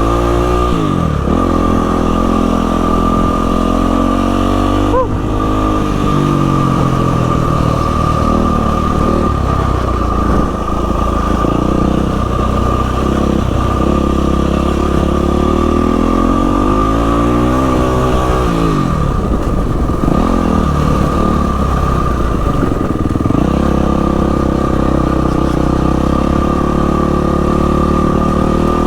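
Yamaha WR450F dirt bike's single-cylinder four-stroke engine under way, its revs rising and falling repeatedly with the throttle.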